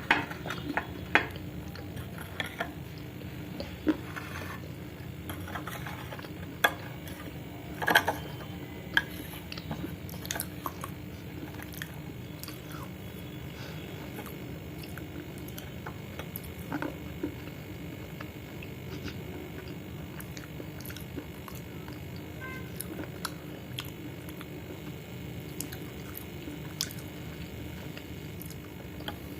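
A person chewing and crunching dry edible clay: sharp, irregular crunches, frequent in the first half and sparser later, over a steady low hum.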